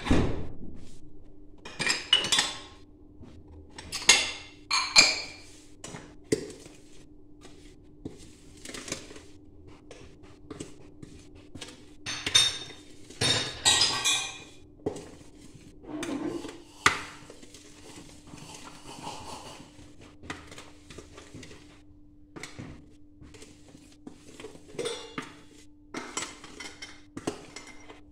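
Dishes and cutlery clattering and clinking as they are handled at a kitchen counter, in scattered bursts with the busiest clusters near the start and around the middle, over a steady low hum.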